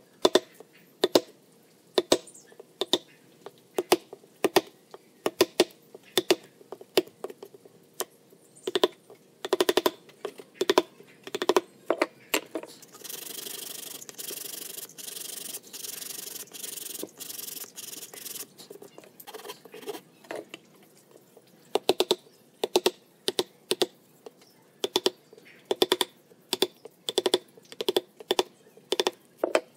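Chisel being driven into a pine disc in a run of sharp taps, about one or two a second. For several seconds in the middle the tapping gives way to a steady scraping as a small blade pares the wood by hand.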